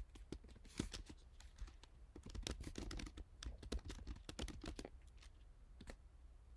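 Typing on a computer keyboard: irregular runs of quick keystroke clicks with short pauses between them, ending in a single key press near the end.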